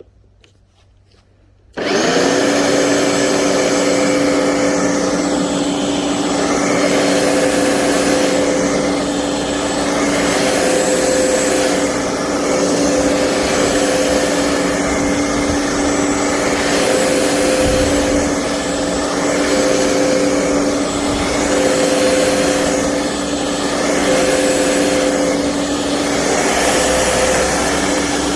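Bosch ARM 3200 1200 W electric rotary lawnmower motor switching on suddenly about two seconds in, then running steadily at full speed with a steady whine.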